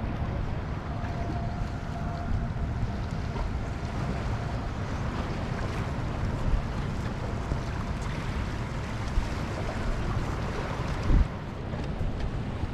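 Wind buffeting the microphone over the wash of small waves against jetty rocks, with a short thump near the end.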